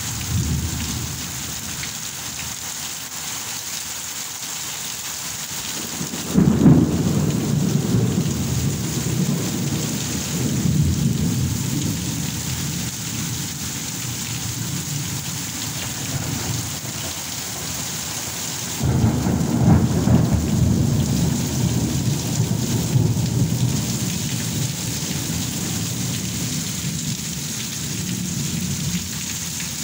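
Heavy rain falling steadily and splashing on a tiled roof terrace during a thunderstorm. Thunder breaks suddenly about six seconds in and rolls on for several seconds, and a second roll of thunder comes in near the two-thirds point and slowly fades.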